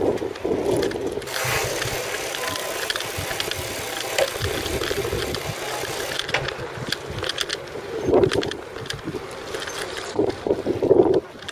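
Bicycle rolling over stone paving: a steady rattle and clatter of the frame and parts on the paving stones, with gusts of wind on the microphone about eight seconds in and near the end.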